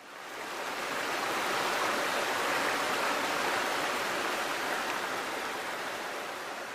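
Steady rush of running water, fading in over the first second or so and slowly easing off toward the end.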